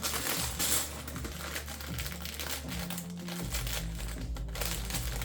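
Small plastic LEGO pieces clicking and rattling as they are picked through and handled, a quick irregular patter of light clicks over soft background music.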